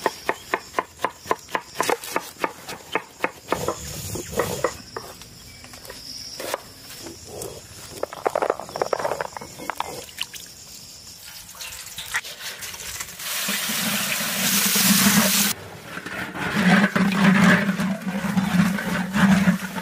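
A knife cutting tomatoes, about four strokes a second, over the first few seconds. Then from about two-thirds of the way through, a loud hiss of spices and curry leaves sizzling in hot oil.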